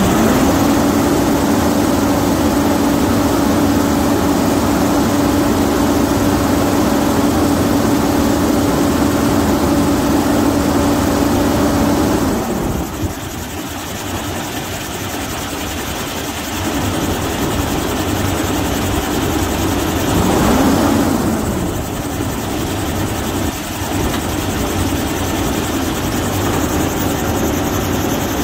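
2016 International semi-truck's diesel engine running, with a steady whine over the engine that stops about twelve seconds in, leaving a quieter idle. About twenty seconds in, the engine revs up briefly and falls back.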